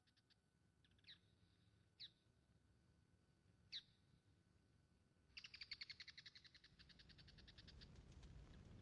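Faint small-bird calls: three single short chirps falling in pitch, about a second apart, then a fast chattering trill lasting a couple of seconds. A low, even noise rises under it near the end.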